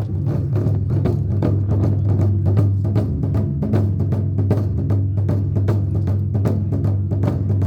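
Festival drumming: quick, steady drum strikes with sharp wooden clicks among them, over a continuous low hum.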